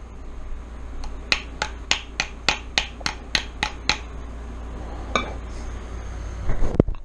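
Light metal taps on a 1996 Suzuki RM250 water pump impeller to seat it further on its shaft in the crankcase: about ten quick, even taps at roughly four a second, then a single tap and a short clatter near the end.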